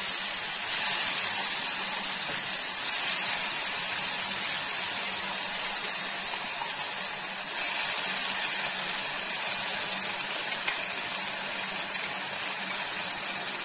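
Wet ground spice paste sizzling in hot oil in a kadai, a steady hiss that flares up louder about a second in and again just after halfway.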